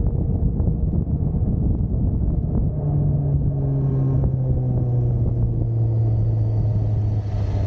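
Motorcycle engine running under heavy wind rumble on the microphone while riding. About three seconds in, the engine note comes through clearly and slowly drops in pitch as the bike slows.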